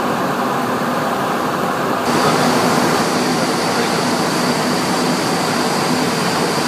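Steady rushing noise of air and air conditioning inside a Boeing 737-800 flight deck in flight, with a faint low hum. About two seconds in it turns slightly louder and brighter and a faint high whine joins.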